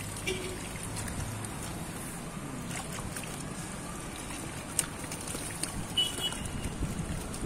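Steady outdoor background noise with a few faint clicks and rustles as a cloth bag of small live bait fish is handled. A brief high tone sounds near the end.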